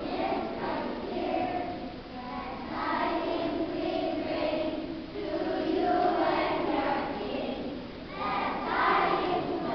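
A choir of young children singing together, phrase after phrase with short breaks between.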